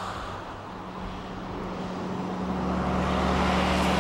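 Diesel semi-truck approaching on a highway, its engine hum coming in steady and growing louder over tyre and traffic noise about halfway through.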